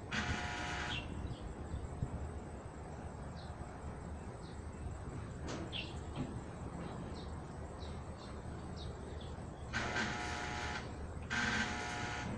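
Metal barrier grille around a building floor buzzing in bursts of about a second each: one at the start and two more near the end, over a low steady rumble.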